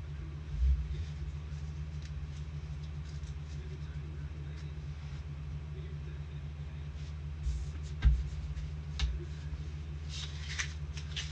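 Steady low electrical hum, with a few dull thumps of things being set down or bumped on the table and light clicking and rustling of handling near the end; the loudest thump comes about eight seconds in.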